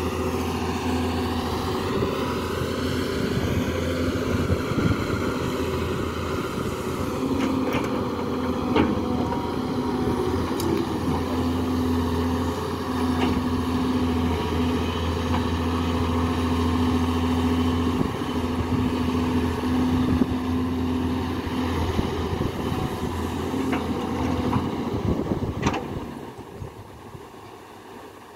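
Diesel engine of a Doosan wheeled excavator running steadily with a constant drone while it digs and loads sand, with a few sharp knocks. The sound drops much quieter about two seconds before the end.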